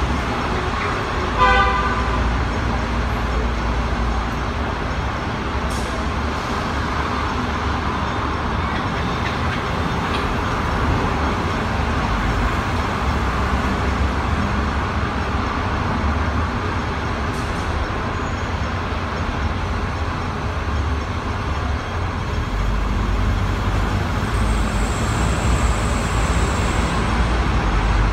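Steady road traffic noise around a stationary tram, with a short vehicle horn toot about a second and a half in. A faint high thin whine appears near the end, and a low rumble grows over the last few seconds.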